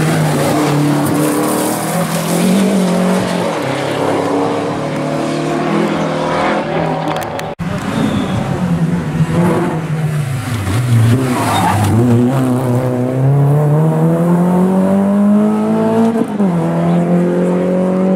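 Renault 5 GT Turbo and Renault Clio rally cars driven hard on a tarmac stage, engines revving high. About ten seconds in the engine note falls as the car slows, then climbs steadily as it accelerates, with a brief dip at a gear change near the end.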